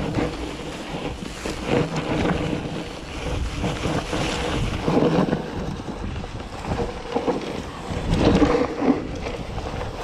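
Rock Machine Blizzard electric mountain bike rolling downhill through snow: tyres running over the snowy trail and the bike knocking and rattling over bumps, with wind buffeting the microphone and louder surges about halfway through and near the end.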